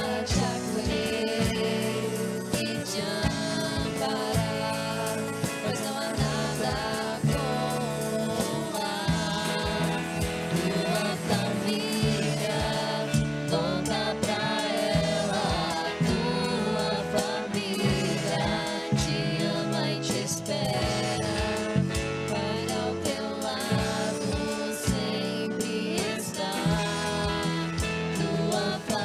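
A Christian worship song: a group of voices singing together over instrumental accompaniment with a steady beat.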